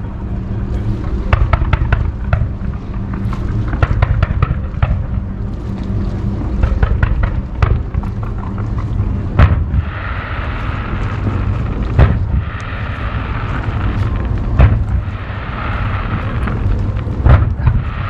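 Aerial fireworks bursting: a quick run of many bangs, then fewer, louder booms about every two to three seconds with a hissing fizz between them.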